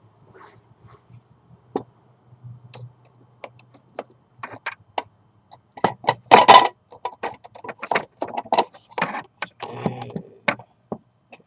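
Handling noise: scattered clicks, taps and rustles, with a burst of louder knocks about six and a half seconds in.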